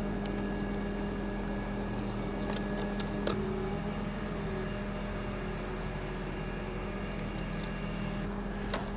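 Crane engine running steadily with an even, unchanging hum, with a few faint clicks and a brief wobble in pitch about three seconds in.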